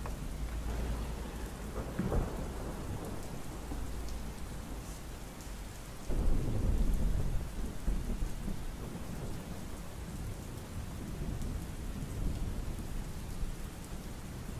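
Steady rain with rolling thunder: a short crack about two seconds in, then a loud thunderclap about six seconds in that rumbles away over several seconds.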